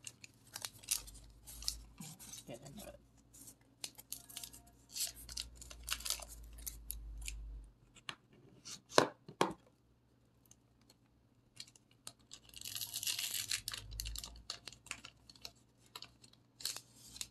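Foil booster-pack wrapper crinkling and being cut open with scissors, with two sharp clicks about nine seconds in and a longer stretch of crinkling about thirteen seconds in.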